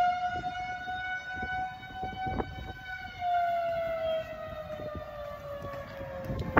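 Outdoor tornado warning siren sounding one long wail that slowly sinks in pitch toward the end, with wind gusting on the microphone.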